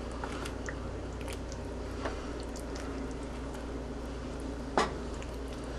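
A spoon stirring thick tomato meat sauce with mushrooms in a pot, making soft squelching sounds over a steady low hum, with one sharper click about five seconds in.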